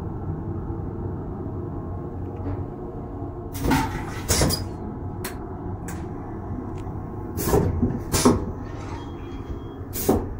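Steady low rumble of the moving Rhaetian Railway train. Over it come a series of sharp plastic clunks and knocks, roughly in pairs, as the fold-down baby changing table in the lavatory is handled and lowered.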